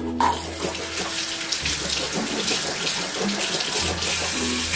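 Bathroom sink tap turned on just at the start and running steadily, the water splashing into the basin as she rinses after brushing her teeth.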